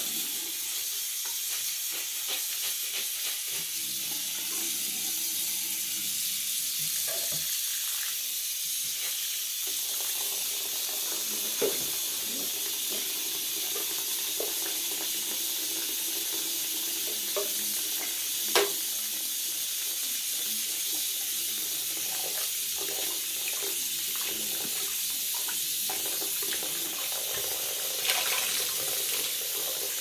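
Bathroom sink faucet running a thin, steady stream of water into the basin, with a few short knocks, the sharpest a little past the middle.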